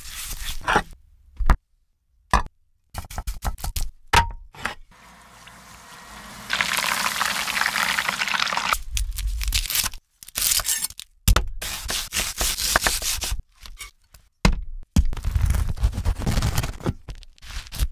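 Close-miked cooking sounds in quick succession: wet squishing and clicks of gloved hands working raw chicken in a glass bowl, a dense sizzling hiss of hot frying oil around breaded chicken cutlets, then the crackly scraping of a serrated knife sawing through a crusty bread loaf on a wooden board.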